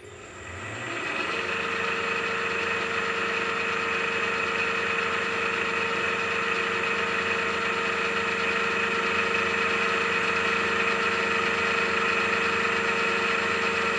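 Machine spindle motor switched on, spinning up over about a second and then running steadily with a steady whine while drilling a plier hole in a steel snap ring.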